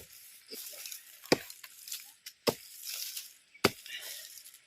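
A hoe chopping into the soil to dig up turmeric rhizomes: four heavy strikes about a second apart, with loose earth and dry leaves rustling between them.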